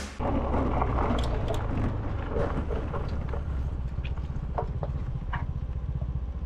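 Scooter engine idling with a low, steady rumble, with a few light clicks and knocks.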